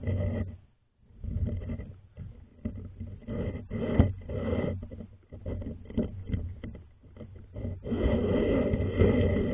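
Rumbling, scraping handling noise from an action camera moving against and along stone shaft walls, with irregular knocks and rubs. It drops out briefly just under a second in and is louder and steadier near the end.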